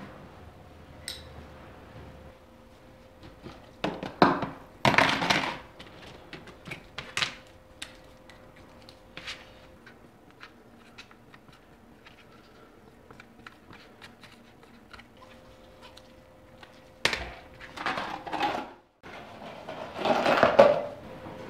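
Workbench handling noises: plastic parts tubs and small parts being picked up, set down and moved, with scattered light clicks and knocks and a few louder rustling, scraping bursts.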